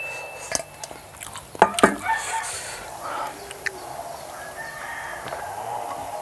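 A rooster crowing, with chickens around it. A couple of sharp knocks about one and a half seconds in are the loudest sounds.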